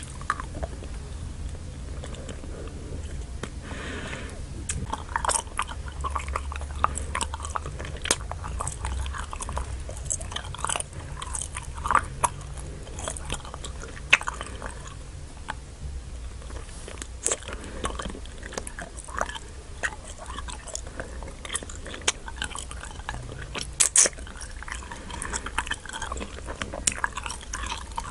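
Nik-L-Nip wax bottle candy being bitten and chewed close to the microphone: many short clicks and crackles of the soft, chewy wax between the teeth.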